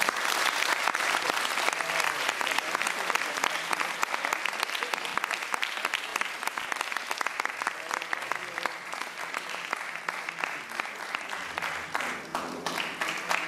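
Theatre audience applauding at the end of a play, a dense, steady mass of clapping.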